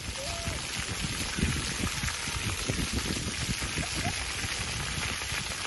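Rows of ground-level fountain jets spraying and splashing back onto wet paving: a steady, rain-like hiss of falling water.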